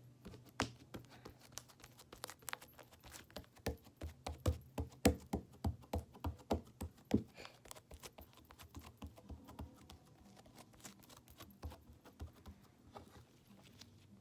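Homemade slime being pressed and folded in the hands to trap an air bubble, giving a quick irregular run of small sticky clicks and squelches that thins out after about eight seconds.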